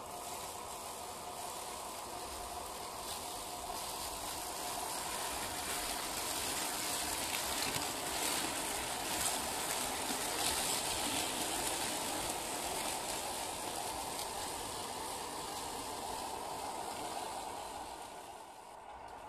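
HB-R1002 Bronco 1/10-scale RC crawler driving over dry fallen leaves: its electric motor and gears whine while the tyres crunch through the leaves. It is loudest around the middle, when it passes close, and fades near the end.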